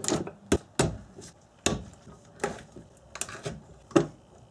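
Scattered metallic clicks and knocks, about eight of them at irregular intervals, from a hand tool working on a car radio's metal chassis as its bracket screws are loosened.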